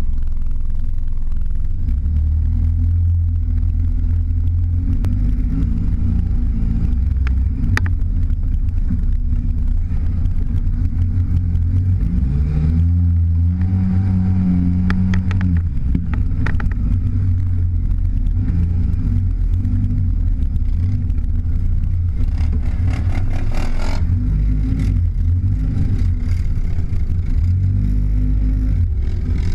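Side-by-side UTV engine running under way, with a heavy low rumble. The engine revs up and back down about halfway through, and a brief rushing hiss comes a little after two-thirds of the way in.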